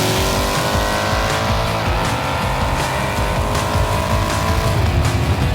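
Car engine pulling hard under full throttle, its pitch climbing steadily, then dropping sharply near the end at a gear change. Music plays along with it.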